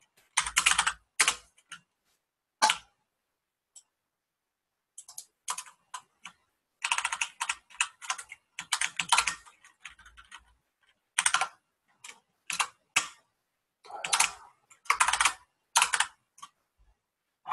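Typing on a computer keyboard: quick bursts of keystrokes separated by short pauses, with a gap of about two seconds roughly three seconds in.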